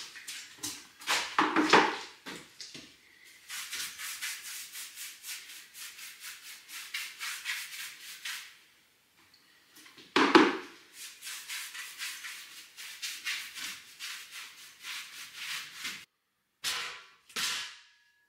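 Hand scrubbing of a rough stone wall, a rapid rasping at about four strokes a second in two long runs. Two louder knocks break it, one near the start and one about ten seconds in.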